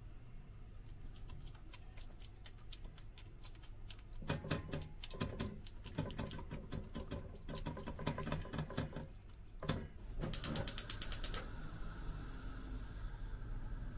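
Hand patting and pressing raw chicken kebab mince flat in a non-stick pot: a run of soft, sticky slaps and clicks. Near the end a gas hob's igniter clicks rapidly, about ten times a second for a second, and the burner lights with a steady hiss.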